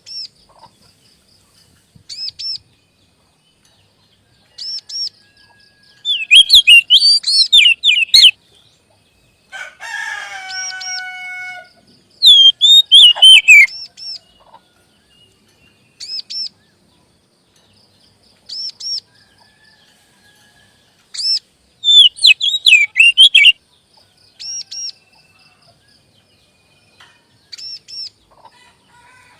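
Oriental magpie-robin singing in short bursts of loud whistled, warbling phrases a few seconds apart. About ten seconds in there is a single harsher, rasping call, and soft rapid ticking notes come between the phrases.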